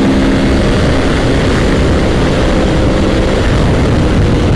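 Sport motorcycle engine running steadily under way, its hum buried in heavy wind rush over the on-bike microphone.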